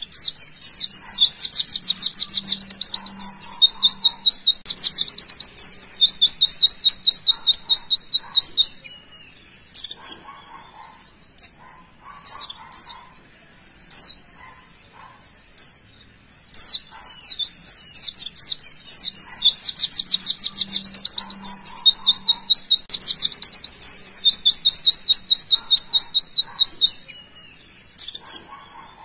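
White-eye (pleci) singing its fast 'tembakan' song: long, rapid trills of high sweeping notes, about eight a second, that run for several seconds, then a stretch of scattered single chirps. The same passage starts over just past the middle.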